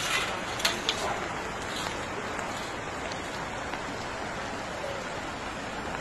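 Steady hiss of water from a flooded street, rain and muddy floodwater running over the road, with a few sharp ticks in the first second.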